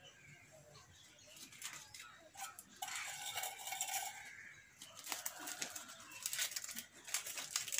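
Crinkling and rustling of a dry wrapper being unfolded by hand to open a food parcel, a run of small irregular crackles that grows busier in the second half.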